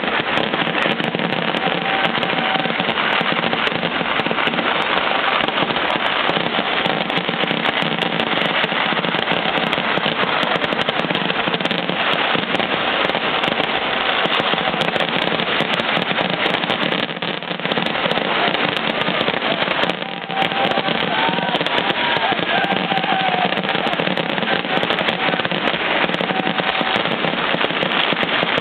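Festival fireworks display: firecrackers going off in a continuous, dense barrage of cracks and bangs, easing briefly twice about two-thirds of the way through.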